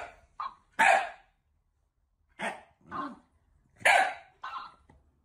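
Shiba Inu barking at a plush toy: seven short barks, three in the first second, then after a pause two more pairs.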